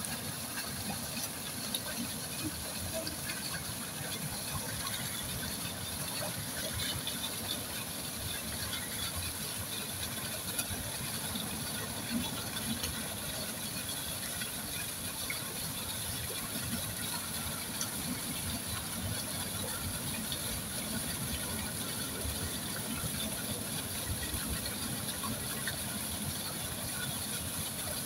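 A mass of koi churning and splashing at the pond surface, their mouths gulping and slurping at the water in a continuous patter of small splashes, over a steady high hiss.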